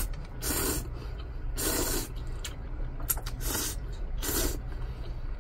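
Ramen noodles being slurped in a series of short, hissing sucks, about five of them roughly a second apart.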